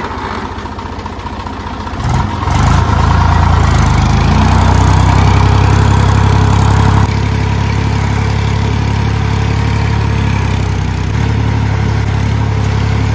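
Blue farm tractor's diesel engine idling, then revving up about two seconds in and running steadily under throttle, easing back slightly about seven seconds in.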